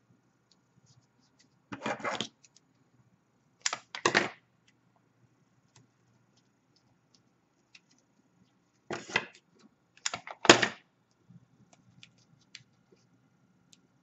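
Adhesive tape being pulled off a roll in several short rips, in two bunches, with faint clicks of handling between.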